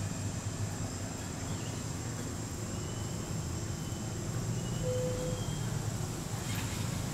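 Outdoor background sound: a steady low rumble with a thin, steady high-pitched whine over it, and a few faint, short high chirps about halfway through.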